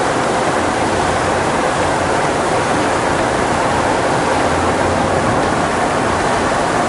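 Steady noise of a car driving on a wet road, heard inside the cabin: tyres hissing on the wet pavement over a low road rumble.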